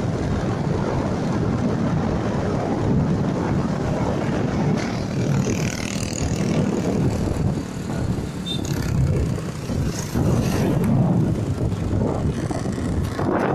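A vehicle running, with wind buffeting the microphone: a steady, dense low rumble.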